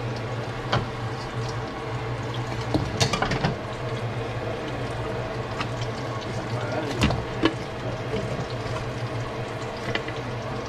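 Seasoned pork rib pieces frying in a nonstick pan with a steady sizzle, while metal tongs click and tap against the pan several times as the pieces are moved and set down.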